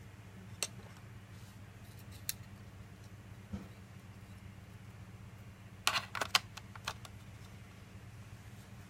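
Small sharp clicks and taps of laptop parts being handled while a cooling fan is fitted, scattered singly with a quick run of four or five clicks about six seconds in, over a steady low hum.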